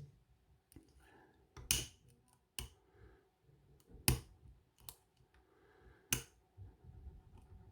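Lock picks working in a padlock's keyway: about five sharp metal clicks at uneven intervals, with faint scraping between them.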